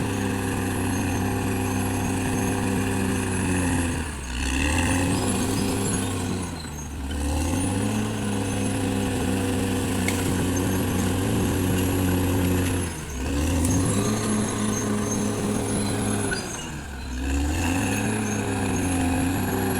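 Caterpillar D6R XL bulldozer's diesel engine working hard, its note sagging and recovering about four times as the load and direction change, with a high whine that rises and falls with the engine.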